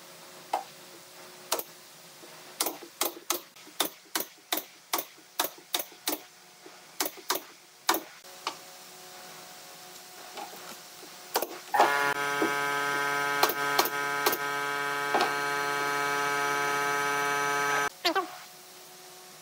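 About twenty sharp clicks and knocks, irregular and a few a second, over the first eight seconds. Then an electric motor runs at a steady pitch for about six seconds, the loudest sound, and stops abruptly near the end with a brief falling wind-down.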